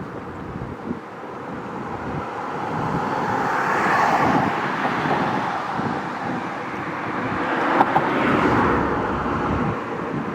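Road traffic passing, swelling and fading twice as vehicles go by, loudest about four seconds in and again near eight and a half seconds.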